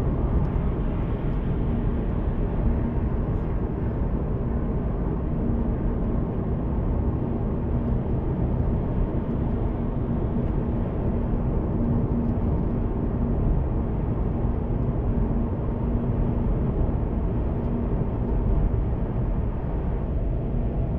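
Steady road and engine noise inside a car's cabin as it speeds up along a motorway from about 70 to 90 km/h: a low, even rumble with a faint steady hum.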